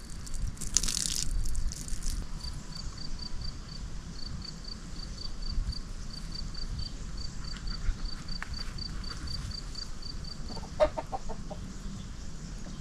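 A brief hiss near the start, then a long run of faint, high, evenly spaced peeps in short groups, and a chicken clucking briefly near the end, over a low rumble of wind on the microphone.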